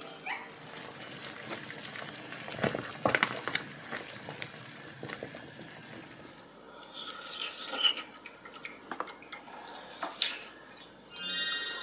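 Kitchen sounds: a few sharp clinks of a utensil against a dish, then water bubbling around a sealed retort curry pouch heating in a pot, and near the end curry sauce pouring from the pouch onto rice.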